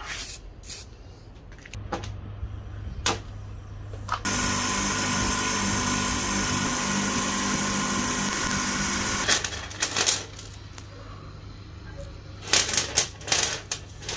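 Sharp metal clicks and knocks of tools and parts being handled, with an electric power tool running steadily for about five seconds in the middle.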